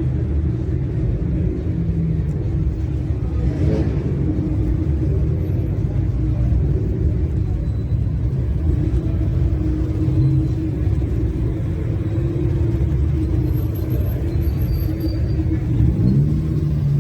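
Modified car engine and exhaust rumbling at low revs, with the pitch rising briefly near the end as it picks up speed.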